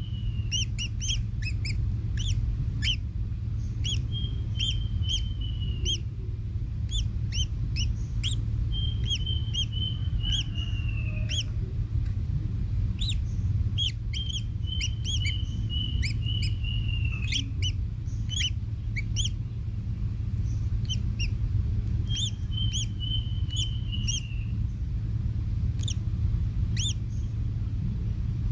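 Birds calling: many short, sharp chirps mixed with several drawn-out trilling calls, each about two seconds long and dropping in pitch at its end, over a steady low rumble.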